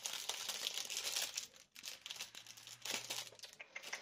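Crinkling and rustling from rummaging through a box of artificial flower stamens, a dense string of small crackles with a short lull just under two seconds in.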